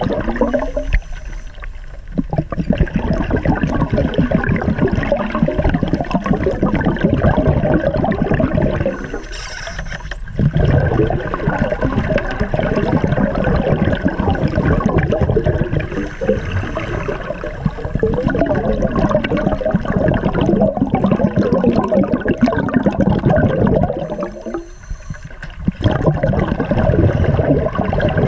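Scuba divers breathing underwater through their regulators: a loud, continuous bubbling rush of exhaled air, broken by brief quieter pauses about a second in, around nine seconds in and about 24 seconds in.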